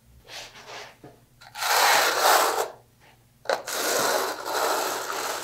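A 3/8-inch square-notch steel trowel combs thinset mortar into ridges on a floor, making rasping scrapes. A light short stroke comes first, then two long, loud strokes.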